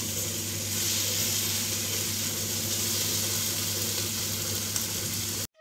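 Steady sizzling from an iron kadhai over a lit gas burner, over a low steady hum. It cuts off suddenly near the end.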